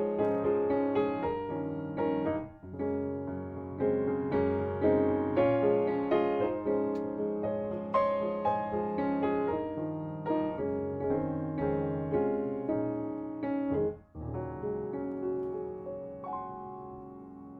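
Background piano music: a soft, gentle melody of struck notes over sustained chords.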